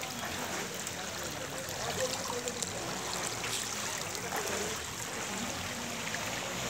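Barak river in flood, its muddy water flowing fast past the bank with a steady rushing and rippling sound.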